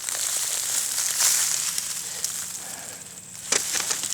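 Soil and plant matter rustling and crunching as potatoes are dug out and handled, with a few sharp clicks about three and a half seconds in.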